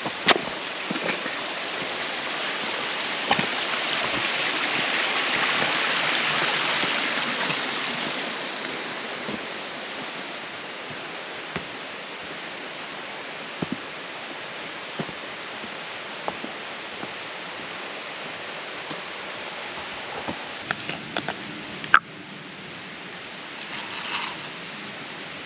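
Rushing stream water, swelling to its loudest a few seconds in and then easing off, with a few sharp clicks scattered through it. The water sound cuts off abruptly near the end.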